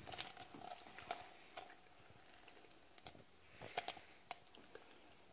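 Faint scattered crackling and creaking from a stack of five styrofoam cups being pushed down into a bowl of acetone as the foam dissolves, with a small cluster of louder ticks a little before the end.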